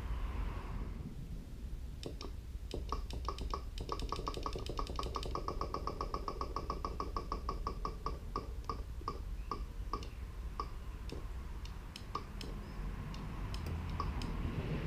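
Electric fuel pump of a 2006 Honda Shadow Sabre 1100 ticking as it primes, powered straight from test leads. The ticking starts about two seconds in, quickens to several ticks a second, then slows to occasional ticks. It is a sluggish pump that the owner suspects is freezing up and dying.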